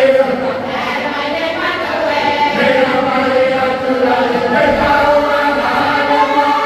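Cook Islands congregation of men and women singing a traditional Christmas hymn together in full, sustained chords, with no instruments.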